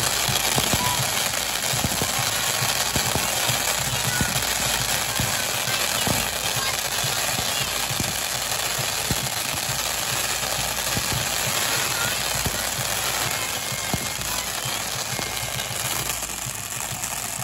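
Fireworks display in a dense barrage: rapid, overlapping bangs and crackling, easing slightly near the end.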